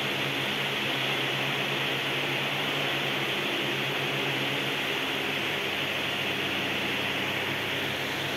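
Steady fan-like hiss with a low machinery hum underneath, unchanging throughout.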